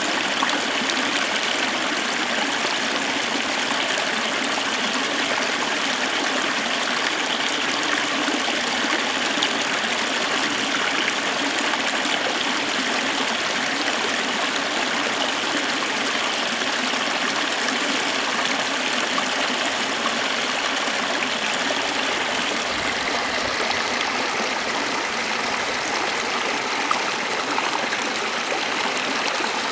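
Water running and splashing steadily over a small waterfall.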